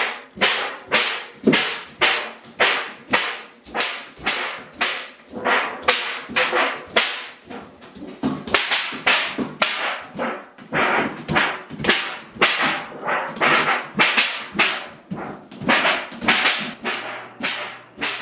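A toy noisemaker set off again and again in quick succession: sharp cracking snaps, about two to three a second, each with a short ringing tail.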